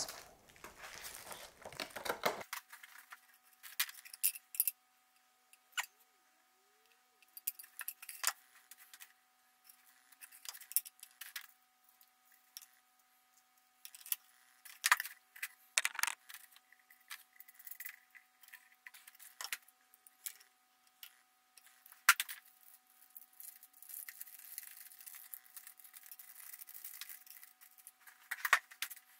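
Small clicks, light metallic clinks and plastic packaging crinkling as thin metal clock hands and a quartz clock movement are handled and fitted by hand, in scattered short bursts; a sharp click about 22 seconds in is the loudest.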